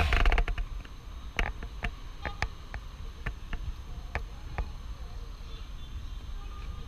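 Wind rumbling on a handheld action camera's microphone, with scattered small clicks and taps from the camera being handled.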